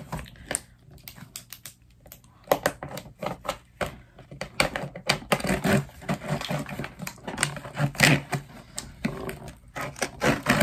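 A pen jabbing and scraping at a cardboard package to cut it open: an irregular run of taps, scrapes and rustles, sparse at first and dense from about two and a half seconds in.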